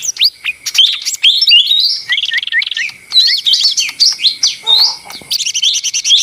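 Lesser green leafbird (cucak ijo mini) in busy, noisy song: a fast, unbroken run of varied high chirps, quick slurred whistles and short trills.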